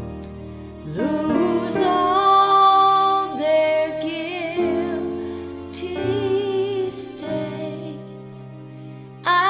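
A woman singing a hymn with vibrato over held, slowly changing accompaniment chords. Her voice comes in about a second in.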